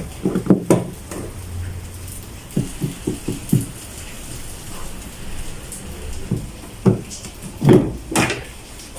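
Plastic push-in clips being pried out and the plastic protector panel worked loose from a car's inner front fender: short clicks and knocks. There are a few near the start, a quick run of about five in a second a third of the way in, and louder knocks near the end.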